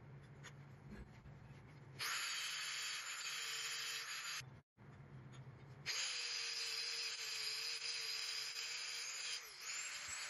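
Angle grinder grinding a steel bracket held in a vise: a loud hiss with a steady motor whine, in two stretches starting about two seconds in and split by a short break. Near the end the grinder is let off and its whine falls as the disc spins down.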